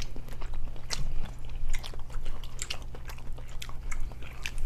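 Close-miked eating: chewing and smacking of seafood-boil food, heard as short, irregular wet mouth clicks over a low steady hum.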